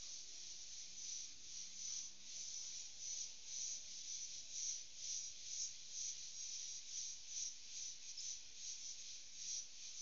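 Insect chorus: a high, rasping hiss that pulses about twice a second, the pulses growing more distinct after the first second.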